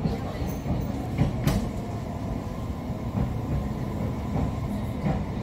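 Cabin running noise of a JR Kyushu 817 series electric multiple unit in motion: a steady rumble of wheels on the rails, with a few short sharp clicks, the loudest about a second and a half in.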